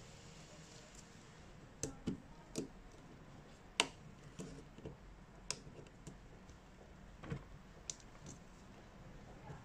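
Small irregular clicks and taps, about a dozen, of hand tools and parts being handled on a smartphone during repair work; the loudest comes about four seconds in.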